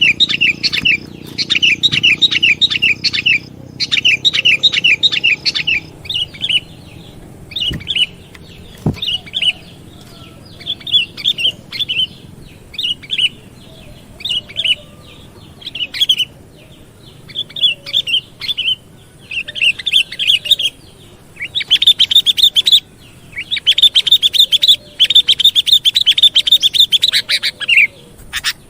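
Sooty-headed bulbul (kutilang) calling in quick chattering phrases of repeated notes, broken by short pauses; the phrases grow longer and denser in the last third.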